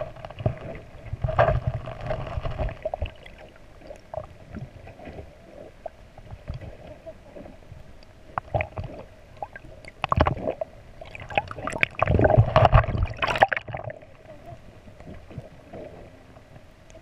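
Water moving around an underwater camera: a steady hum with two bursts of bubbling and gurgling, one about a second in and a longer one about ten seconds in.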